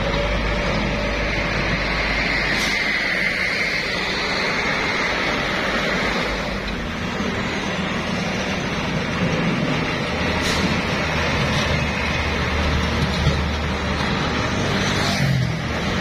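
Roadside traffic: diesel trucks running past, a loaded tandem-axle dump truck pulling away and other heavy trucks approaching, with scooter engines passing close near the end. The engine noise is steady throughout, with a few short hisses.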